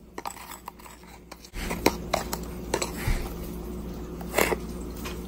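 Spoon and containers handled while measuring out sugar: rubbing and scraping with scattered clicks. A steady low hum comes in about one and a half seconds in.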